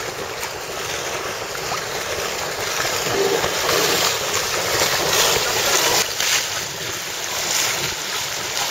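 Waves and water splashing with wind on the microphone, as a steady rush. The electric inboard runabout passing by makes no motor sound that is heard above the waves.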